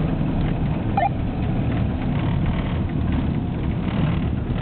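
Ford pickup truck on the move: a steady low rumble of engine and road noise.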